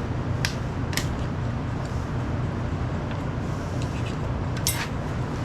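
An engine idles steadily, with a few sharp metallic clicks about half a second in, about a second in, and near the end.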